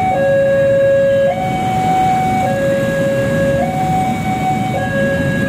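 Level-crossing warning alarm sounding a two-tone signal, a lower and a higher tone alternating about every second, over idling and pulling-away motorbike engines.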